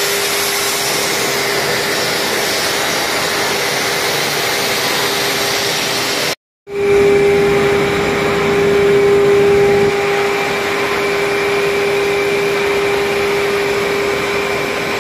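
Steady machine noise from a 4000-tonne Kramatorsk hot forging press running idle: an even hiss with a steady mid-pitched whine. About six seconds in the sound drops out for a moment, and after it the whine is louder.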